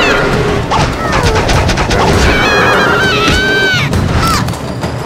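Cartoon fight-cloud sound effects: a rapid jumble of smacks and crashes under music, with squeaky sliding cries from the cartoon larvae in the middle.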